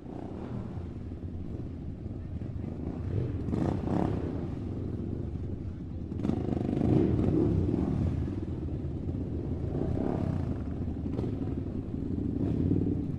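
Toy RC rock-crawler truck's small electric motor and gearbox whirring steadily as it drives, rising and falling a few times.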